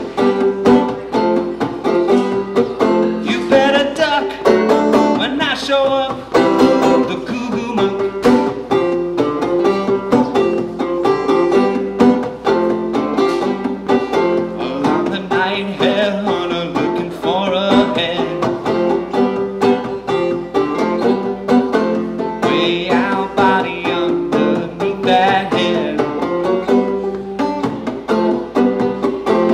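Banjo played clawhammer style, a solo instrumental passage of steady plucked and brushed notes.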